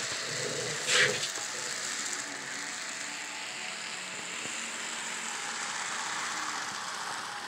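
N scale Metro-North FL9 model locomotive running along the track, a steady whirring of its small motor, gears and wheels on the rails, with a brief hiss about a second in.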